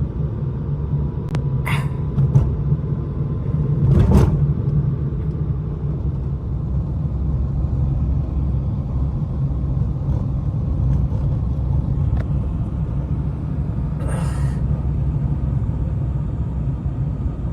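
Strong wind buffeting the microphone in a blizzard: a loud, steady low rumble, with a few faint knocks and clicks.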